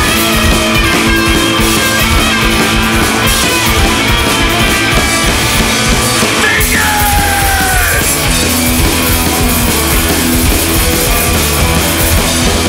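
Loud punk-rock music played live by a band of robot musicians, a dense, steady wall of band sound with drums and amplified instruments.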